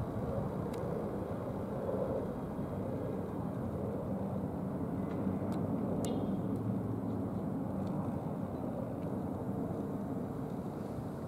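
Twin-engine air ambulance helicopter flying by at a distance: the rotor and turbines make a steady, low drone.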